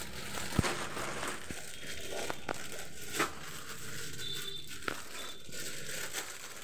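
Plastic clothing packets rustling and crinkling as garments are handled and unpacked, with a few short sharp clicks.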